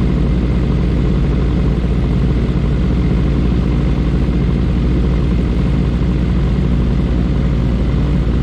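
Sport motorcycle engine idling steadily.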